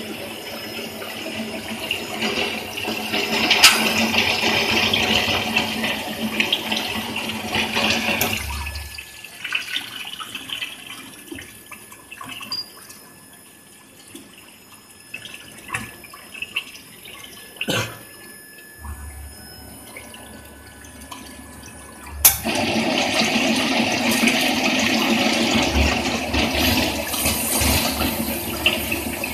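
Quench water rushing and splashing on a CNC induction hardening machine, with a hum under it at first. It drops away about eight seconds in, leaving a quiet stretch with a few sharp clicks, then comes back on suddenly and loudly about 22 seconds in as the next shaft is hardened.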